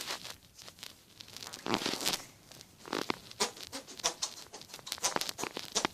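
Wet hands pressed and pumped together, giving a series of short, irregular squelches and smacks, some with a brief buzzy edge: attempts at a hand fart noise.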